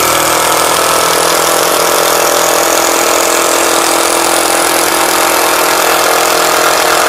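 Mollar 12-volt cordless impact driver hammering steadily, loud and level, as it drives a screw into wood.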